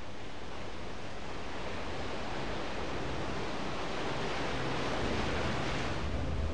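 Sea surf: waves breaking and washing in, a dense rushing noise that swells to its loudest about five seconds in, then eases slightly.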